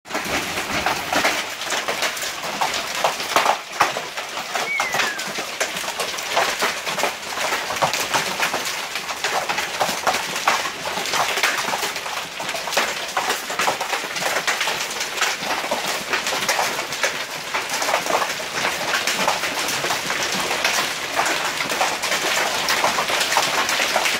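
Hail falling steadily: a dense patter of countless small stones striking the ground and nearby surfaces. A single short falling whistle sounds about five seconds in.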